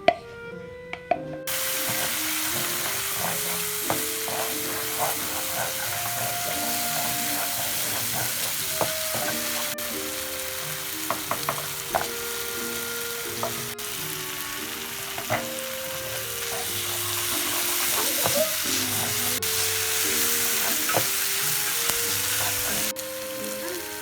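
Food sizzling as it fries in hot oil in a pan, with a utensil stirring and clicking against the pan now and then. The sizzle starts suddenly about a second and a half in and cuts off shortly before the end.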